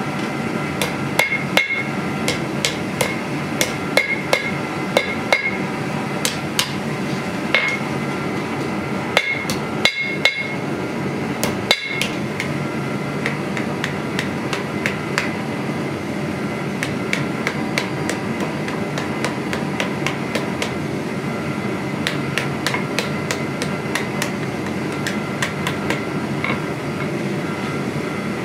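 Hand hammer striking red-hot steel on an anvil: an uneven run of blows, each with a short metallic ring, heavier in the first half and lighter toward the end. A steady background noise runs underneath.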